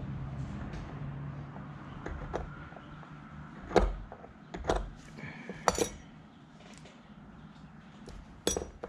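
A few sharp metallic clinks and knocks of small hand tools, a steel rule and a scriber, being handled and set down on a workbench, some with a brief ring.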